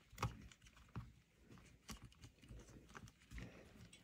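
A few faint, irregular clicks and taps of small metal bag-lock hardware and the stiffened bag flap being handled.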